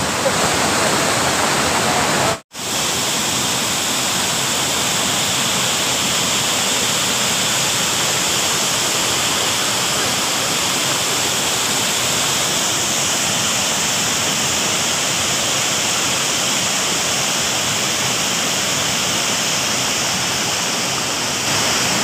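Waterfall: a loud, steady rush of falling water, broken by a very short dropout about two and a half seconds in.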